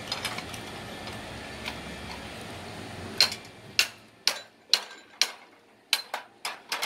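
Hammer knocking oyster shells against a blade set in a log, cracking them open: a run of about nine sharp knocks, roughly two a second, starting about three seconds in, over a steady low hum.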